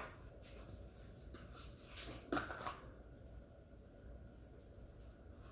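Quiet kitchen handling of utensils while ice cream is served onto a cake: a sharp click at the very start, a few faint ticks, and a short scrape a little over two seconds in, over low room hum.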